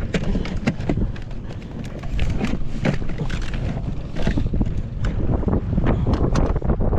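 Wind buffeting the microphone with a constant heavy rumble, with irregular short knocks scattered throughout.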